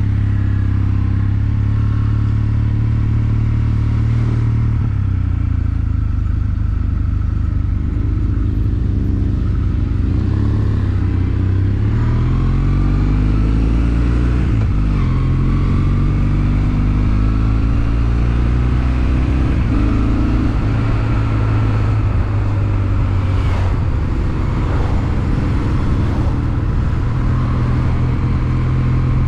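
Motorcycle engine running under way. Its pitch holds steady for stretches and rises and falls in the middle with throttle and gear changes.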